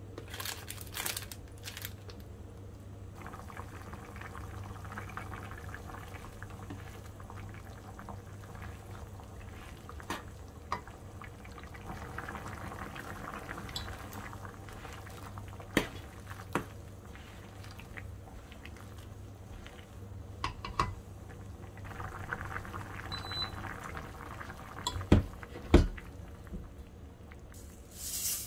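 Udon broth simmering in a frying pan, with a steady low hum under it. A rustle of seasoning sachets comes about a second in, then a spoon clinks against the pan now and then as it stirs, and two louder knocks come near the end.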